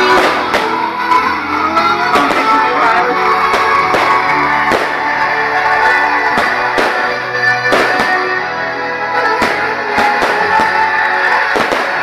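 Music led by guitar, with short sharp hits scattered through it.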